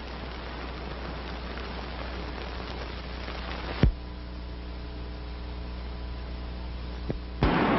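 Steady hiss and mains hum of an old film soundtrack. About four seconds in a click cuts the hiss down, leaving a steady hum with several tones. Near the end a second click brings in a louder rushing noise.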